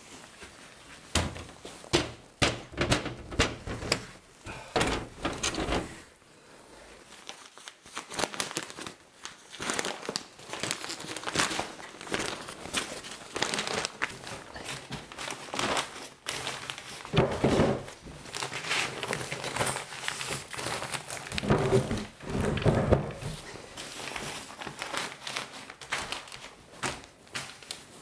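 A plastic oilcloth tablecloth being unfolded, shaken out and spread over a table, crinkling and rustling. Sharp knocks and clatter come in the first few seconds.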